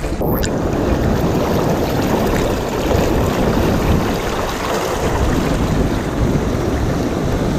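Choppy sea water sloshing and lapping close around a deep-wading angler, with wind buffeting the microphone; a steady noise without letup.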